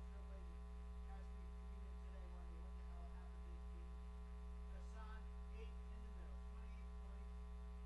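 Steady electrical mains hum with a buzz of many even overtones, and faint, indistinct talking underneath.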